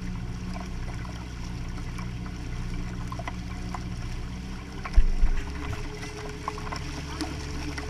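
Motorboat under way: a steady low engine hum with water rushing and splashing along the hull close to the waterline. A couple of loud thumps come about five seconds in, after which the low hum changes.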